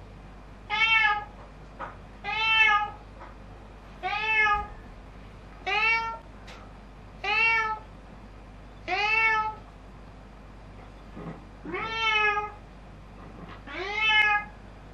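Domestic cat meowing over and over: about eight meows spaced a second and a half to two seconds apart, each rising then falling in pitch, with a longer pause before the last two.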